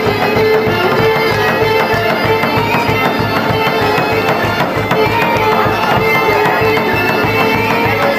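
Loud Balkan folk dance music with a steady drum beat under a running melody, accompanying a line dance.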